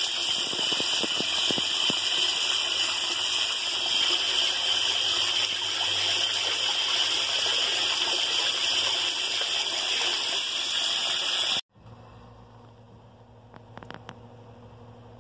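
Newly replaced float valve spraying water into a water tank: a steady hissing rush of the tank refilling. It cuts off suddenly near the end, leaving only a faint low hum.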